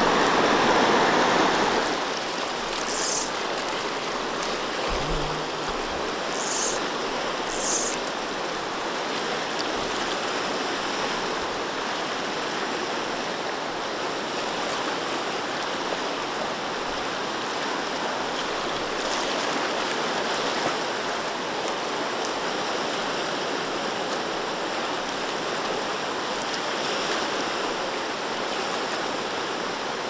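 Upper Sacramento River rushing over rocks in a fast riffle: a steady, full rush of white water, louder for the first two seconds. The river is running high and strong after rain, at about 1500 cfs.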